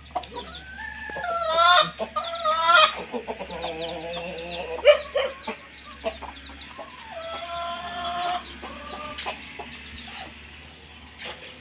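A flock of chickens clucking and calling, with several calls overlapping and some long, drawn-out calls that may be a rooster crowing. A sharp click or knock sounds about five seconds in.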